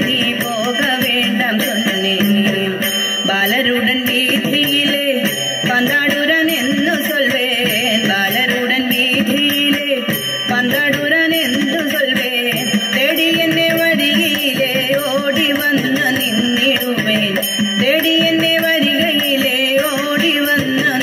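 Loud dance music with a singing voice carrying a winding melody over instrumental accompaniment.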